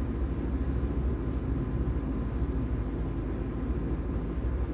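A steady low rumble with no distinct strokes or clicks.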